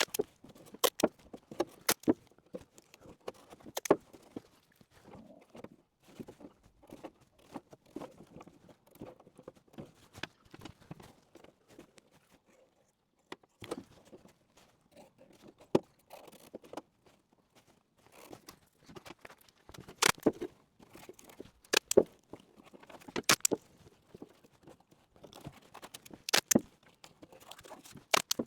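Masking tape being torn off the roll and pressed into place: irregular crackles and sharp snaps, a few louder ones in the second half.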